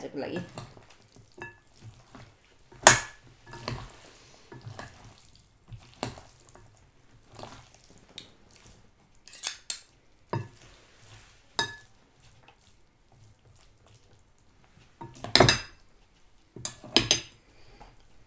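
Cutlery clinking and knocking against dishware in scattered separate strikes, about a dozen in all, the loudest about three seconds in and a cluster near the end.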